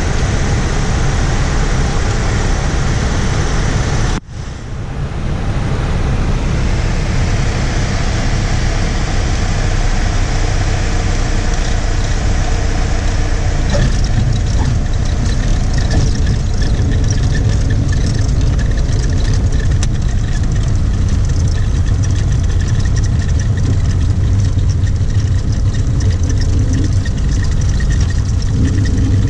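Cockpit noise of a single-engine piston light aircraft on final approach and landing rollout: a steady, loud drone of engine and airflow. About four seconds in the sound drops away sharply for a moment, then builds back up.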